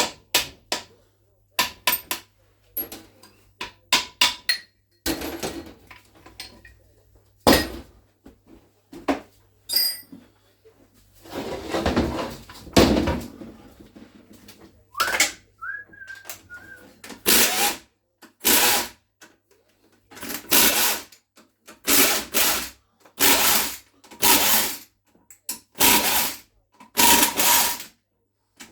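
Power drill run in about ten short bursts, one roughly every second, starting about two-thirds of the way in, working on a gearbox casing. Before that, scattered metallic clicks and knocks of tools and parts.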